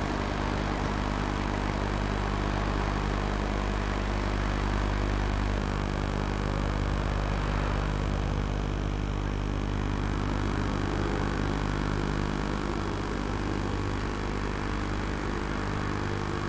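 Diesel engines of large hydraulic crawler excavators running steadily, a continuous low engine note with no strokes or breaks.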